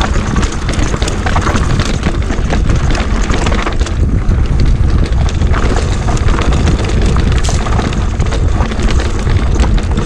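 A mountain bike descending a rocky trail, with wind buffeting the action-camera microphone in a steady low rumble, and tyres and frame clattering over rock in many quick knocks.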